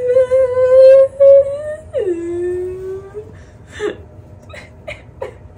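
A young woman's voice drawn out in a long wordless wail: held on one high pitch for about two seconds, then dropping abruptly to a lower note held for about another second. A few short, soft sounds follow.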